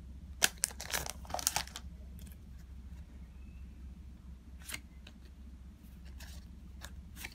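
Digimon trading cards being picked up and flicked through in the hand: a quick run of crisp card snaps and slides from about half a second to two seconds in, then a few single snaps near the end.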